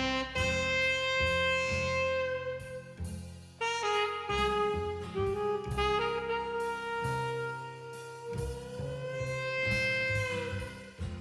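Background music: a saxophone playing a slow melody of long held notes over a jazzy accompaniment.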